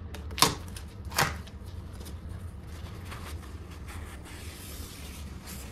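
Paper towel rustling and rubbing while wiping caulk along a baseboard edge, with two short sharp rustles in the first second or so, then soft faint rubbing.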